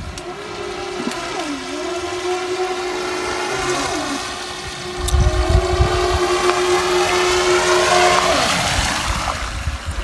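Radio-controlled toy speedboat's motor whining as the boat runs across the water. It grows louder about halfway through and drops in pitch near the end as it slows.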